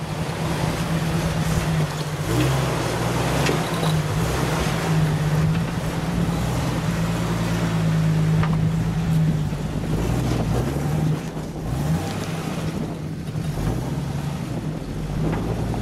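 Jeep Wrangler's 4.0-litre straight-six running at low revs while crawling over rocks, its note rising and falling with the throttle. A few short knocks are heard along the way.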